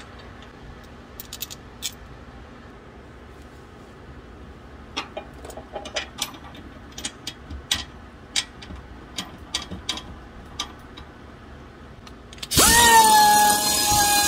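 Scattered light clicks and taps from hand-threading the hitch bolts. About 12.5 seconds in, a pneumatic air ratchet on an air hose starts with a hiss and a steady whine, running a bolt into the chassis.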